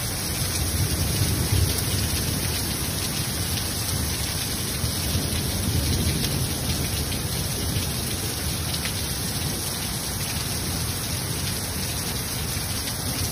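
Torrential rain pouring down steadily onto a street, a constant, even hiss of heavy rain.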